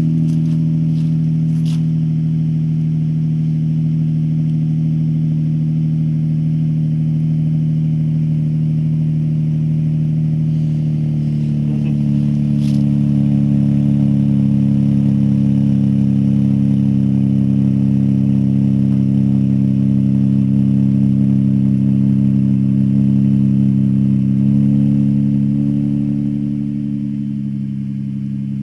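Hyundai Azera V6 with a custom exhaust idling after a cold start, a steady low note from the tailpipes. The idle note drops slightly in pitch and grows a little louder about twelve seconds in, shifts again near the end, and then gets quieter.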